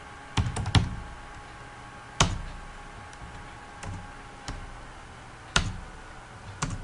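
Computer keyboard keystrokes: a handful of sharp, separate key taps at uneven intervals, three of them in quick succession near the start.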